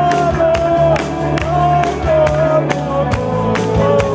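A live rock band playing: an electric guitar holds long, bending lead notes with vibrato over a steady bass line and a regular drum beat.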